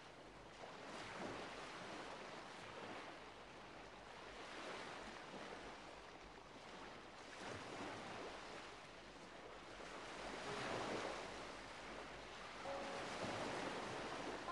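Faint, even rushing noise that swells and fades every few seconds, like waves washing on a shore.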